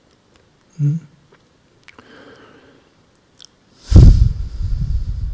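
Small mouth and breath noises close to a microphone, then about four seconds in a loud breath blowing onto it, a low fluttering rumble for about a second and a half.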